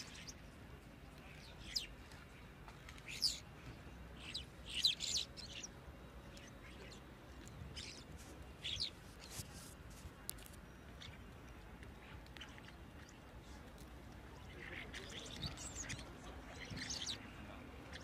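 Common starlings calling in short, scattered chirps and squawks, with a busier run of calls near the end.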